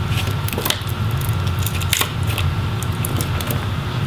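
Small clicks and crackling as a flat pry tool peels a laptop webcam module up off its adhesive, with a sharper click about two seconds in. A steady low hum runs underneath.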